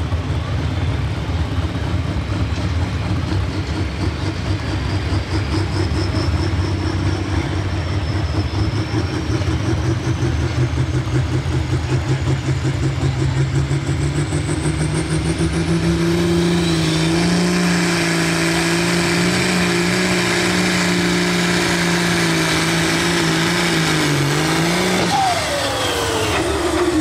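Turbocharged diesel engine of a John Deere super stock pulling tractor revving up at the starting line, with a high turbo whine climbing steadily in pitch as the revs build. The engine then holds at high revs, and near the end its note dips and shifts as it takes the load of the pull.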